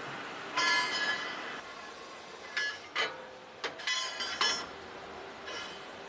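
Steel track-shoe plate clanking along a roller conveyor over a steady factory hum. A loud ringing clank comes about half a second in, then a run of sharper metal clanks midway, and a fainter one near the end.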